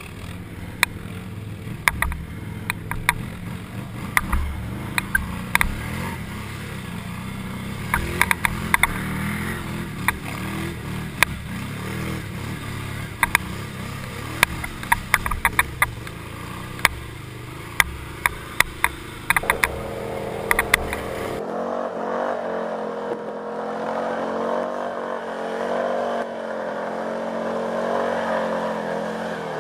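An ATV engine runs under load while driving through water, with frequent sharp splashes and knocks. About 21 seconds in it cuts to a green Arctic Cat 700 ATV's engine revving as the quad wades through water.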